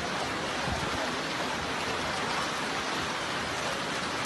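A steady hiss of water, as of rain and moving floodwater.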